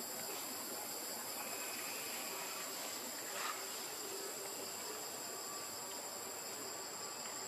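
Steady insect chorus in the forest, a continuous high-pitched drone, with one faint brief sound about three and a half seconds in.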